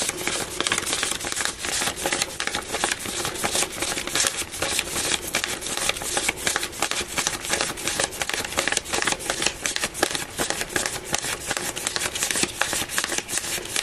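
A stack of UK £20 polymer banknotes being counted by hand, each note flicked off the pile with a crisp snap, in a fast, even run of clicks.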